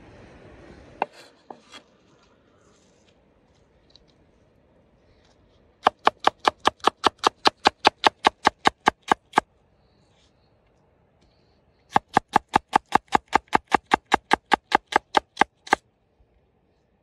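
Large kitchen knife slicing a red onion against a wooden cutting board: two quick runs of evenly spaced chops, about six a second, with a pause between them. A brief trickle of water comes at the start.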